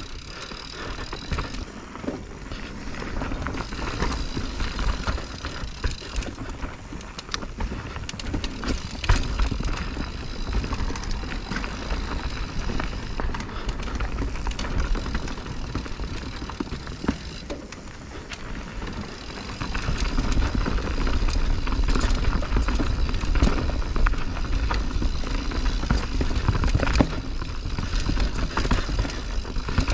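Mountain bike riding down a rough, technical dirt trail: tyres rolling over the ground, the chain and frame rattling, with frequent sharp knocks. A low rumble grows louder about twenty seconds in.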